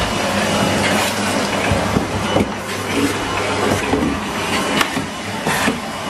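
Henry tub vacuum cleaner running steadily with its motor hum and suction rush, with a few short knocks as it works the carpeted stairs.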